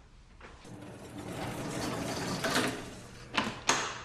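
A door latch and lock being worked as a door is opened: a rustling mechanical rattle, then two sharp clicks near the end.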